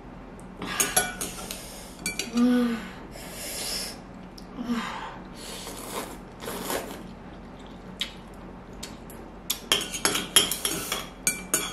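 Instant noodles being slurped up in several quick hissing pulls, with metal chopsticks and a spoon clinking against the bowl; the clinks come thickest near the end.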